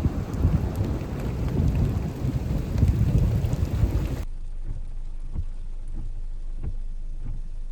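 Heavy rain with the low rumble of thunder, which cuts off abruptly about four seconds in to a much quieter background with scattered faint taps.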